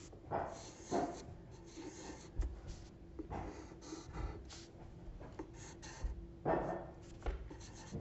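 Wooden pencil drawing small circles on paper: a run of short, irregular strokes, the strongest about six and a half seconds in.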